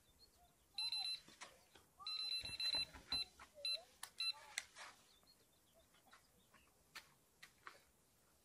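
An electronic carp bite alarm beeps in irregular runs over the first few seconds, the sign of a fish taking line. Scattered sharp clicks and knocks follow.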